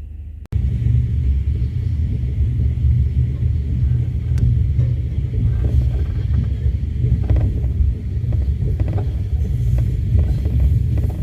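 Passenger train running along the track: a steady low rumble with scattered irregular clicks and knocks from the wheels and coach. It starts abruptly about half a second in.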